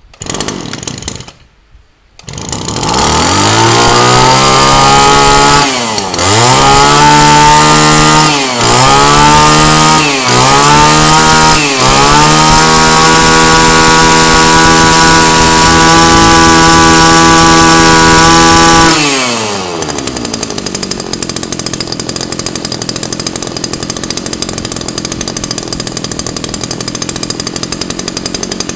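Tanaka KB-311 two-stroke brush cutter engine being pull-started and catching after about two seconds. It is revved up and down several times and held at high revs, then drops back to a smooth, steady idle for the last third.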